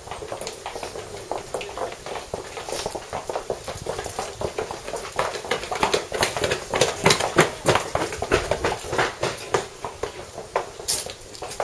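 Footsteps on a stone-paved path, many irregular clicking steps that overlap, loudest in the middle.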